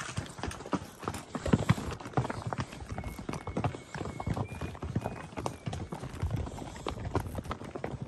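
Hooves of shod Criollo horses clip-clopping in an uneven, overlapping rhythm as they move along a trail.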